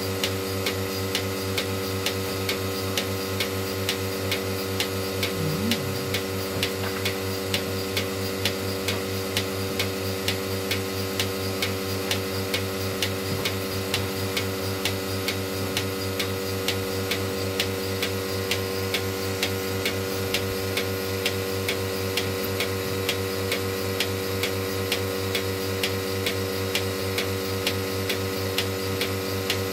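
Bucket milking machine running on a cow: the pulsator clicking in a steady even rhythm over the constant hum of the vacuum pump.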